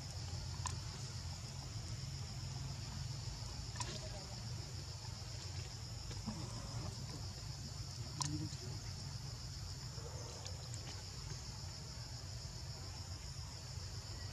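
Steady high-pitched buzzing of an insect chorus over a low rumble, with a few faint sharp clicks about a second in, near four seconds and near eight seconds.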